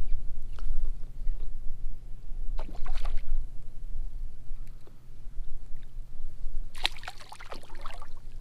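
A hooked redfish splashing and thrashing at the surface beside a kayak: a short splash about three seconds in, then a longer, louder bout of splashing near the end, over a steady low rumble.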